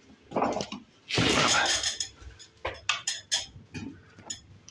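Bricks being handled and set in place: a brief rasping scrape, then a run of hard clinks and knocks of brick on brick.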